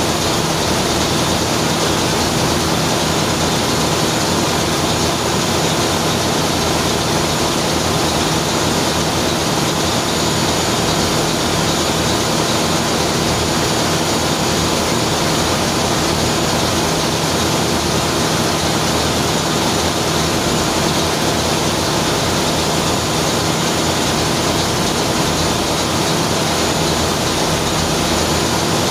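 Ship's in-line main diesel engine running steadily: a loud, unbroken engine-room drone with a low hum beneath it.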